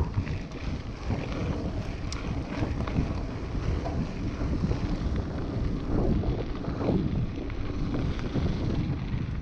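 Wind rushing over the camera microphone while a mountain bike rolls fast down a gravel track, its tyres crunching on loose stones with the odd rattle from the bike.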